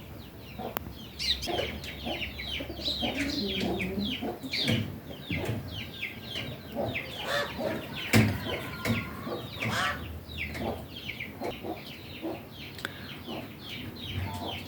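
Chickens clucking, with a constant run of quick, high, falling chirps.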